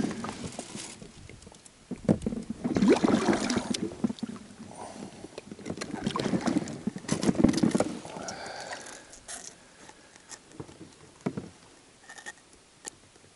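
Water splashing and knocking around a small boat, in a few bursts that die away toward the end.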